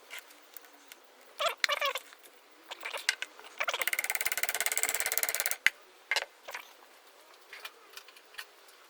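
Metal-on-metal clicks and clinks from hand work on a car starter motor's Bendix drive, with a run of rapid, evenly spaced ratcheting clicks lasting about two seconds in the middle.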